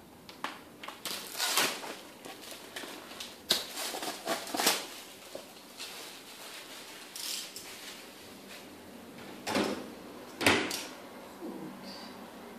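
Handling noises on a work table: scattered knocks, clicks and rustles of art materials being picked up and set down, with a few louder knocks, the loudest about ten seconds in.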